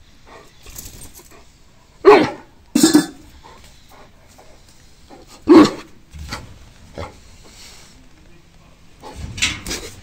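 Alaskan Malamute barking: three short, loud barks, two close together about two seconds in and a third about three seconds later, with a quieter noisy sound near the end.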